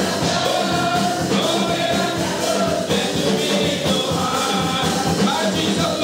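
Men's gospel vocal group singing together into microphones over live band accompaniment with a steady drum beat.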